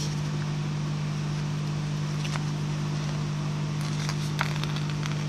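Steady low electrical hum throughout, with a few faint light clicks as tweezers lift strips of double-sided tape off their backing sheet.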